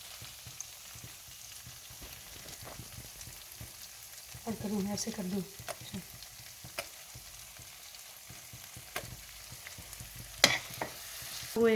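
A spiced sauce sizzles steadily in a frying pan while it is stirred, with a spoon clicking against the pan several times, loudest about ten seconds in.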